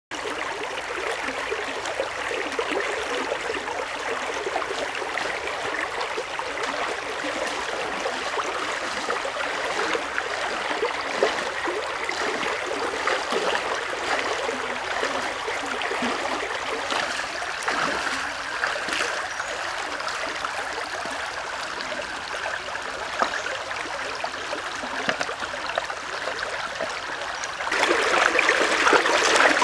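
Shallow stream running, a steady rushing trickle of water, louder near the end.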